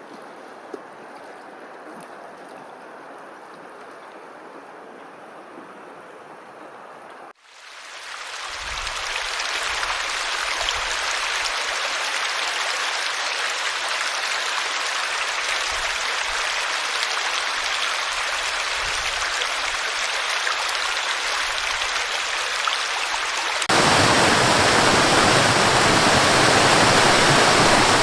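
Rushing water, a steady even roar in three stretches joined by abrupt cuts: a softer rush, then a louder one that swells in about seven seconds in, and a louder, fuller one still for the last few seconds.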